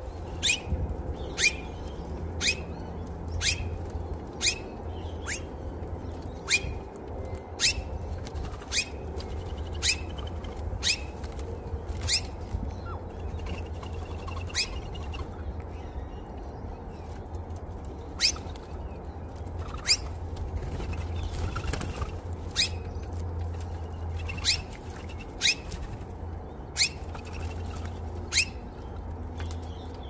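Birds calling at a seed feeder: a short, sharp, high call that drops in pitch, repeated about once a second and then more irregularly, over a steady low rumble.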